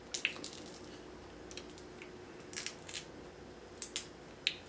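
Scattered small clicks and wet crackles from eating snow crab legs: shell pieces handled and crab meat chewed, a few sharp ticks at a time.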